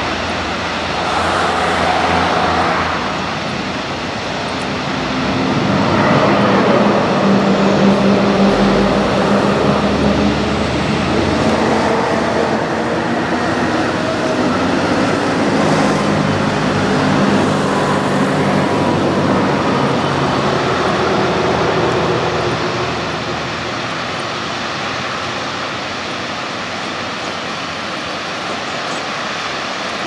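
Road traffic: the engines of passing motor vehicles drone, loudest through the middle and easing off about two-thirds of the way through, over a steady rushing noise.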